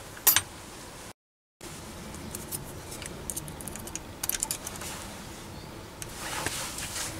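Light scattered clicks and taps of a steel rule handled against a brass piston rod held in a stopped mini lathe's chuck, over faint room noise; the sound drops out briefly about a second in, and a quick run of clicks comes near the end.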